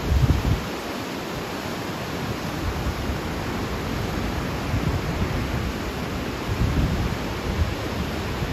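Steady rush of ocean surf, with wind buffeting the microphone in uneven low rumbles, strongest just after the start and again about three-quarters of the way through.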